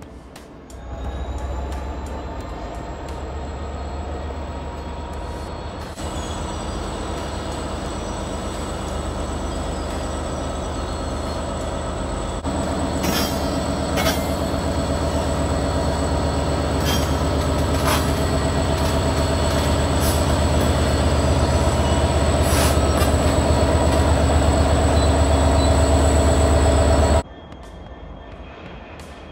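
Class 66 diesel-electric locomotives working heavy aggregate trains: the deep, steady note of the two-stroke V12 diesel under load, with wheels squealing and a few sharp knocks from the wagons. The sound grows louder as a locomotive passes close, then drops away suddenly near the end.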